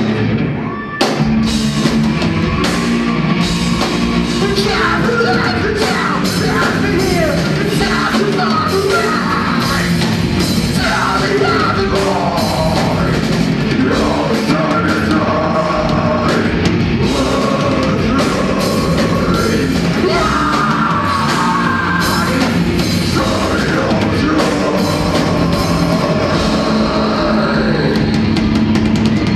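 Live rock band playing electric guitars, bass guitar and a drum kit, with a singer's vocals over them. There is a short break about a second in before the full band comes back in.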